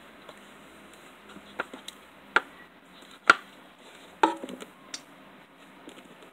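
Hard-top slime being poked and handled in a metal-rimmed tin: a handful of sharp clicks and taps, the loudest a little past the middle, one followed by a short rattling crackle.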